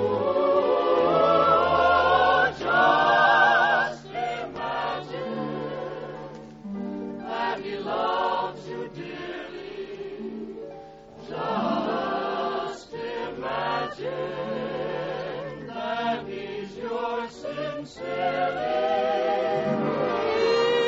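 Choir singing with orchestra in a musical-comedy show tune, voices holding long notes with vibrato.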